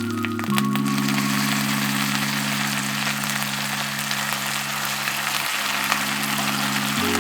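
Food sizzling in a frying pan, a steady crackling hiss, under soft background music of slow held chords that change about half a second in and again near the end.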